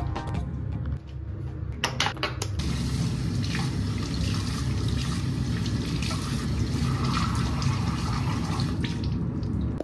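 Water running steadily from a bathroom tap into a sink while the face is rinsed, after a few short knocks about two seconds in.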